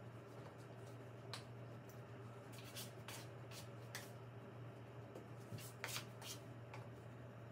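Soft rustles and light taps of hands working sourdough dough and a floured, towel-lined bowl. They come as a few short scattered sounds, the loudest about six seconds in, over a steady low hum.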